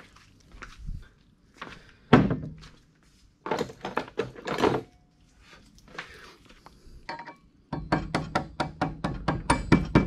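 Small hammer tapping a driver tube to seat the crank gear on a VW Type 1 crankshaft, metal on metal. A few separate knocks in the first half, the loudest about two seconds in, then a quick run of taps, about five a second, from near the end.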